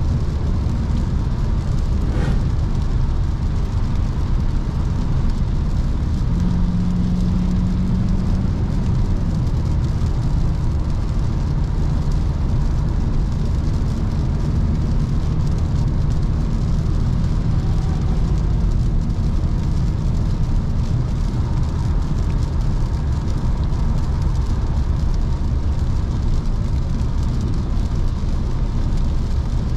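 Cabin noise of a Volkswagen Passat B8 driving on a wet road on Pirelli Cinturato P7 summer tyres: a steady low road and tyre rumble. A single click comes about two seconds in, and a low steady hum is heard for a couple of seconds about six seconds in.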